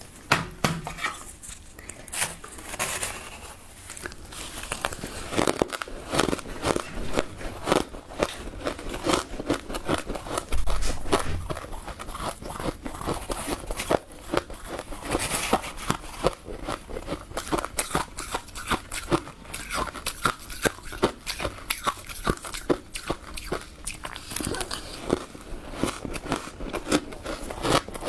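Close-up crunching of powdery freezer frost ('snow ice') being bitten and chewed. The crackling is dense and irregular, with a louder run of crunches about ten seconds in.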